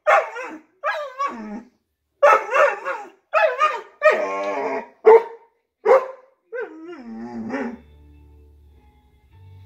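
A large dog barking excitedly in a rapid run of about nine barks, several of them drawn out and falling in pitch. The barking stops about eight seconds in, leaving a faint low steady hum.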